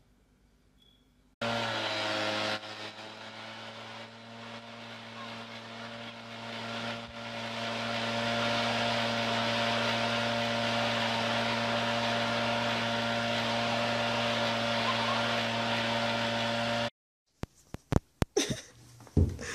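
Leaf blower running steadily, a motor hum with a rush of blown air, which cuts off suddenly near the end. After it come a few sharp taps of a small dog's booted paws on a wooden floor.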